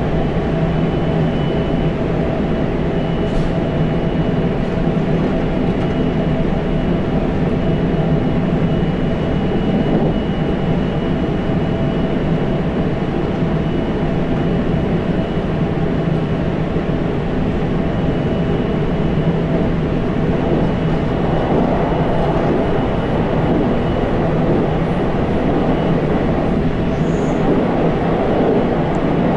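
Running noise inside a JR Central 373 series electric train's motor car, KuMoHa 373-1, under way between stations: a steady rumble of wheels on rail with a thin high tone held above it.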